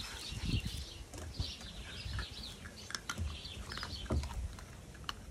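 Small birds chirping in the background, with scattered light clicks and low thumps.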